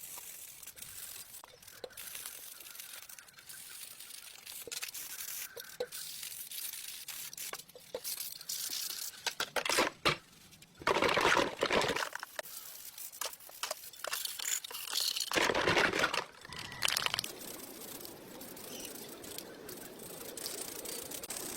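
Intermittent scraping and rubbing from hands-on restoration work, with scattered small clicks and louder stretches of scraping about ten and fifteen seconds in.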